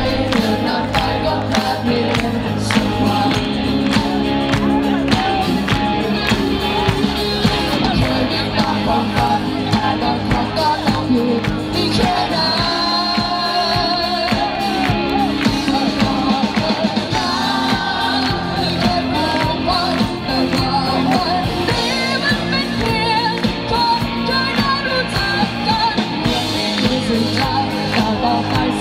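Live band playing a song through a PA, with a singer's voice over the band.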